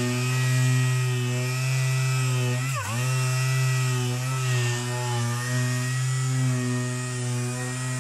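Random orbital sander running while sanding body filler on a van's rocker panel, a steady motor hum. Its pitch dips briefly about three seconds in, as the pad bears harder on the panel.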